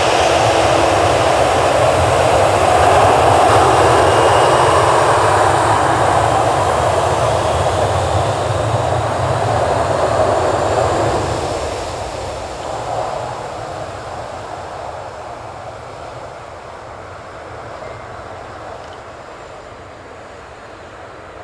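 Boeing 737-800's CFM56 turbofan engines running at taxi power as the jet rolls past close by: a steady jet rumble with a high whine that falls slightly in pitch. The sound fades steadily from about ten seconds in as the aircraft moves away.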